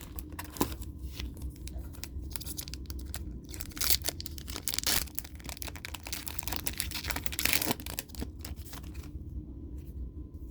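Foil wrapper of a Yu-Gi-Oh! booster pack being torn open and crinkled, in irregular crackling bursts that ease off near the end.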